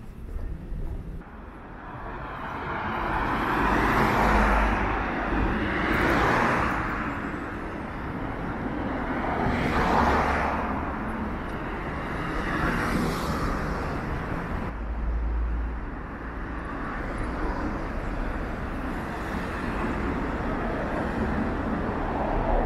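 Road traffic: cars passing one after another, each rising and fading away, over a steady hum of street noise.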